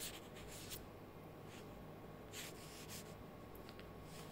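Faint room tone: a low steady hum and hiss, with a few brief soft hissing or rustling noises scattered through it.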